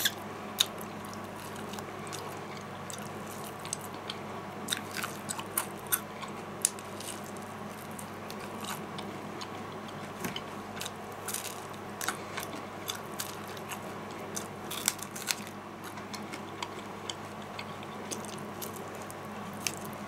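A person biting and chewing Kentucky Fried Chicken, with many short crunches and wet clicks scattered throughout and a faint steady hum underneath.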